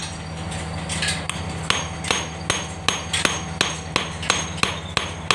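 A hammer strikes a small steel shaft key laid on a steel plate, with sharp metal-on-metal blows at about two to three a second. The key is being peened flatter because it was loose in the pulley's keyway, so that it will fit tight. A steady low hum runs underneath.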